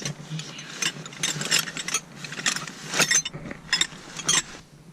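Metal hand tools clicking and clinking in a run of irregular sharp knocks, as in work on a clutch slave cylinder and gearbox bolts; the clatter stops near the end.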